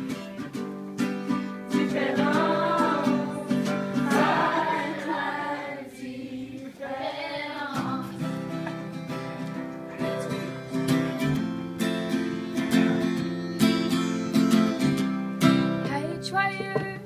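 A song played on acoustic guitar, with voices singing over the strummed chords.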